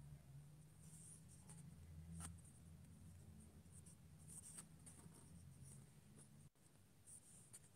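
Near silence: faint low room hum with small scattered scratchy rustles and ticks.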